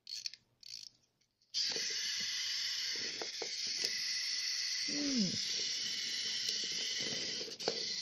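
Clockwork wind-up toy plane: a few short ratcheting clicks as its key is wound, then from about a second and a half in its spring-driven motor runs with a steady high whirring buzz, broken by a few sharp clicks.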